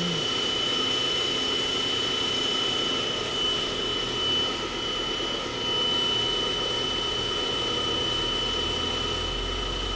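Hardinge VMC 1500 XP3E vertical machining center's spindle running steadily at 5,000 RPM, a constant high-pitched whine. An air compressor runs underneath.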